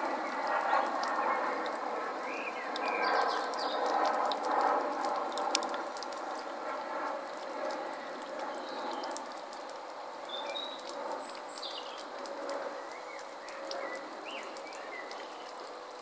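Water from a pebble-filled stone bowl fountain trickling and splashing over the stones, growing quieter toward the end, with birds chirping and singing now and then.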